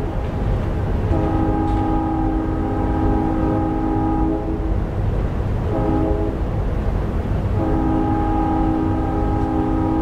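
Synthesized recreation of a distant Nathan P3 three-chime diesel locomotive air horn, sounding a long blast, a short one and another long one, the end of a grade-crossing signal. A steady low background rumble runs beneath.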